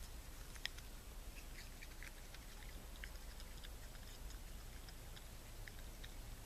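Raccoon munching on an apple: irregular small crunchy clicks of chewing, with one sharper crunch about half a second in.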